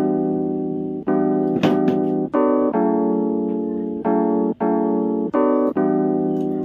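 Background keyboard music: sustained electric-piano chords that strike and slowly fade, changing every second or so, with a few faint clicks about two seconds in.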